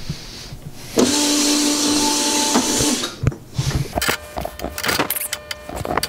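A Winona Van Norman cylinder-honing machine runs for about two seconds with a steady hum and hiss, then stops suddenly. Metal clicks and rattles follow as the machine and the cylinder fixture are handled.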